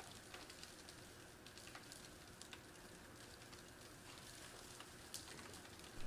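Faint hiss scattered with tiny ticks, close to silence: dry sand grains trickling and sliding down the slope of a conical sand pile.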